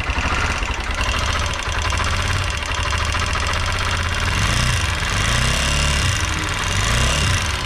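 TVS Apache RTR 160 4V's single-cylinder engine running with the throttle opened a little, revs rising and falling, with a light, fast tik-tik ticking from the top end that sounds ugly. The mechanic suspects the rocker arms or the automatic cam chain tensioner.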